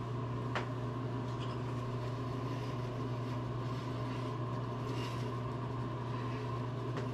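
Small electric motor running with a steady low hum and a hiss.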